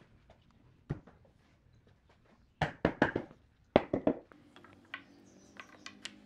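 Sharp wooden knocks and thuds as a heavy solid-wood bed frame on log legs is rocked and shifted by hand, in two quick clusters in the middle, the loudest nearly four seconds in; lighter taps follow over a faint steady hum.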